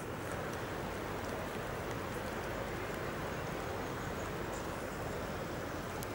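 Light rain falling steadily: an even hiss with faint scattered drop ticks and a low rumble underneath.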